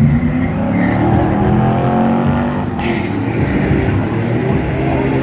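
Drag-racing cars, a Ford Fiesta and a Corvette, accelerating hard off the line, their engine notes climbing in pitch. About three seconds in the note drops back, as at a gear shift, and climbs again.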